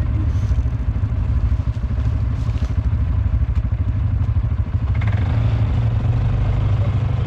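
Quad (ATV) engine running under throttle as the quad crosses a leaf-covered slope. It pulls harder a little before five seconds in.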